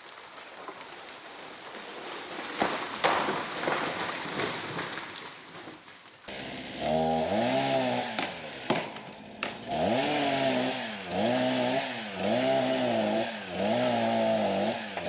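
A few sharp cracks over a noisy rustle, then from about six seconds in a gas chainsaw running, revving and bogging repeatedly as it cuts, its pitch dipping and rising again about every second and a half.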